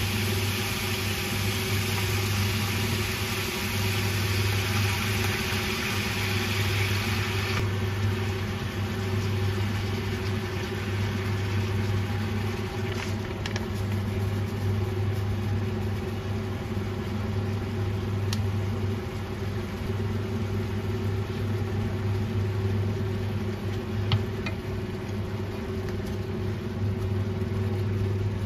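Steady electrical hum of a running kitchen appliance, with a hiss over it that cuts off suddenly about eight seconds in, and a few faint clicks later on.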